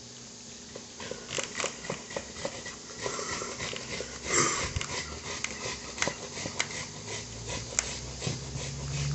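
Knife slicing cabbage on a cutting board: irregular taps and crunches starting about a second in, with one louder crunch about halfway through.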